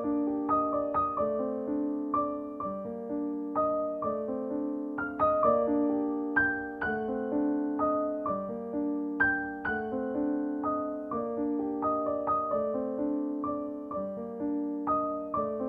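Background piano music: a calm keyboard melody of struck notes and chords, each left to ring and fade.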